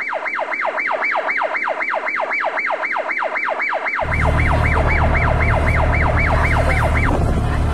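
Edited-in electronic sound effect: a tone that sweeps quickly from high to low, repeated about four times a second, stopping about seven seconds in. From about four seconds in, an auto-rickshaw engine drones steadily underneath.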